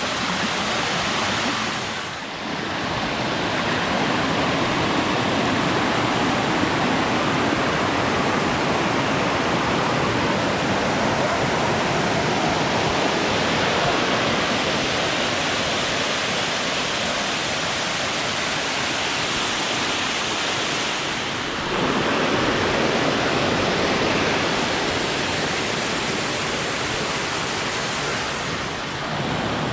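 Waterfall rushing in a steady, loud roar of falling water, dipping briefly twice.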